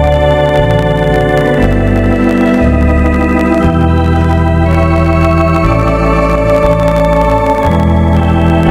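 Organ playing a slow hymn in sustained chords, the bass note changing about once a second.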